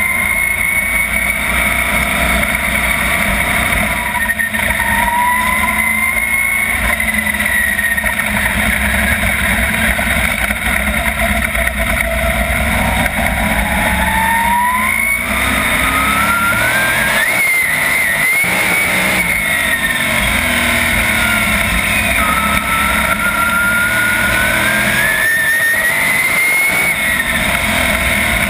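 A 410 sprint car's 410-cubic-inch V8, heard from onboard the car. It runs at a steady, lower pitch at first. About halfway through the revs climb to a peak, ease off, then climb again near the end.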